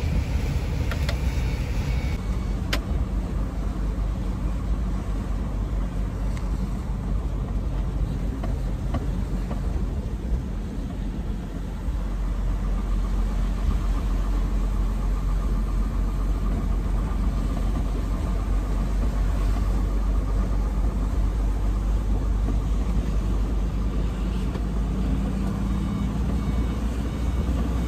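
Inside a semi-truck cab at highway speed: the diesel engine runs with a steady low drone under constant road and tyre noise on a wet road.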